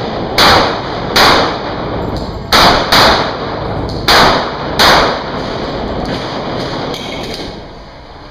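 Six pistol shots ringing off the walls of an indoor range: two about a second apart, a quick double a little later, then two more about a second apart.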